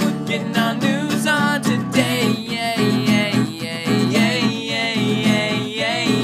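Acoustic guitar music with singing: the show's closing theme song.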